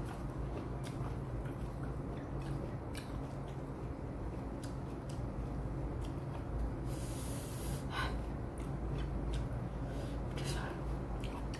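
Close-miked chewing with small wet mouth clicks, and a short sniff through the nose about seven seconds in, over a steady low hum.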